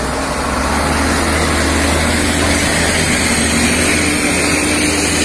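Volkswagen heavy truck's diesel engine running as it pulls up the ferry ramp close by: a steady low rumble, the engine note rising slightly about halfway through as it pulls away.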